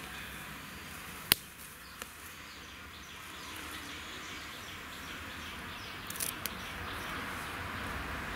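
Fresh moringa leaves rustling and snapping as they are picked off their stems by hand into a steel bowl, with a single sharp click about a second in and a few light ticks later.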